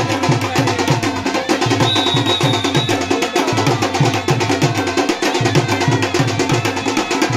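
Music driven by fast, steady drumming and sharp percussion strokes in an even repeating rhythm, with a brief high held tone about two seconds in.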